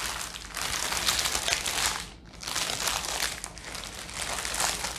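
Clear plastic bag crinkling as hands handle it and pull at it, with a short lull about two seconds in.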